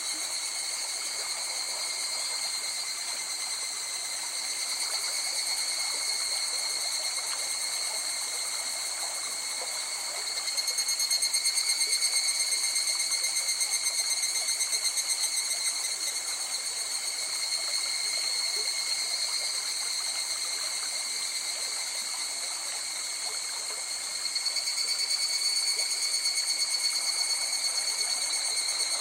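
River water flowing steadily under a chorus of insects trilling at several high, steady pitches. The trilling grows louder about ten seconds in and again a little before the end.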